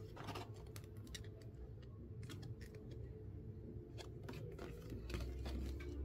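A paper quick start guide card being handled and lifted out of a cardboard keyboard box: scattered rustles, scrapes and light taps, busiest near the end.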